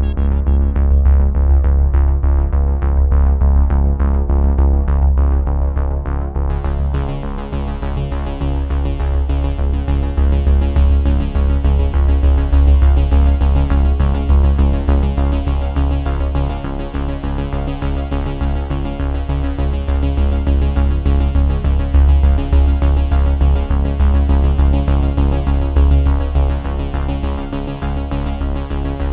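Electronic background music: synthesizer chords over a heavy bass, with brighter high sounds coming in about six seconds in.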